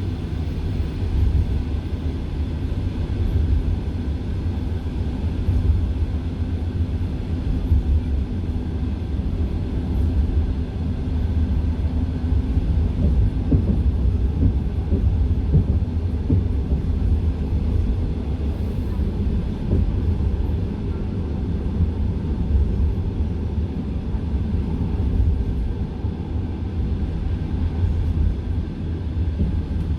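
Passenger train carriage on the move, heard from inside: the wheels and running gear rumble steadily and low on the track, with irregular light knocks from the wheels.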